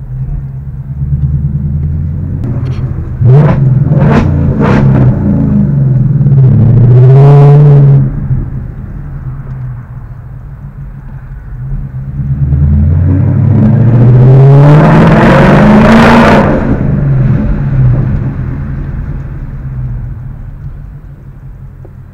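Ford Mustang GT's 5.0 V8 heard from inside the cabin, accelerating hard twice, the pitch rising to a loud peak and then falling as it eases off. A few sharp cracks come during the first pull, about three to five seconds in.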